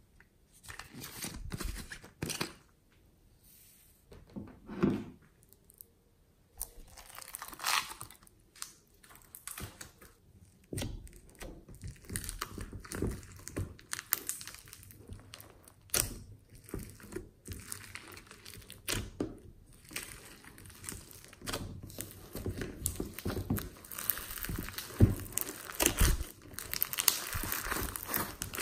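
Hands pressing and kneading glossy slime packed with foam beads: dense crackling, crunching and squishing that grows busier in the second half, after a stretch of scattered clicks and rustles.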